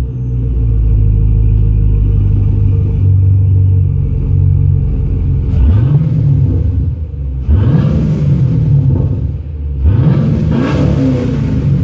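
Chevrolet Camaro SS 6.2-litre V8's exhaust, just after starting. It holds a steady fast idle for about five seconds, then gets four throttle blips, each rev rising and falling, with the last two close together near the end.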